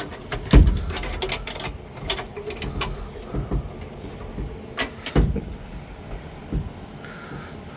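Interior panel being forced and slid into place in a car's body: a run of knocks, clicks and scraping, with heavy thumps about half a second in and again at about five seconds.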